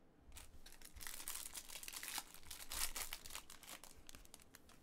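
Clear plastic wrapper of a trading-card pack being torn open and crinkled by hand: a run of crackles that thins out near the end.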